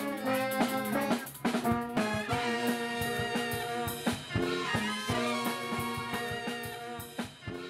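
Saxophone and brass band with a sousaphone and drum kit playing a tune: held chords over regular drum hits.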